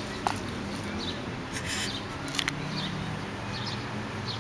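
Quiet outdoor ambience as an English cocker spaniel noses through the grass on its leash: a sharp click just after the start, a short rustle and two more clicks in the middle, and a few faint high chirps near the end.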